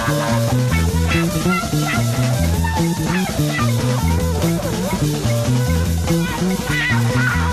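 Instrumental break of a late-1960s psychedelic rock song: a guitar lead with bending notes over a repeating bass riff.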